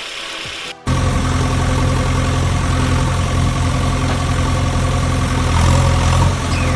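Engine idling steadily with a low, even rumble, cutting in abruptly under a second in after a short break; before it, a different, higher mechanical rattle.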